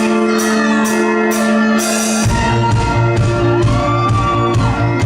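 Live band music: sustained synth-like tones with bright hits about twice a second. A deep, pulsing bass comes in about two seconds in.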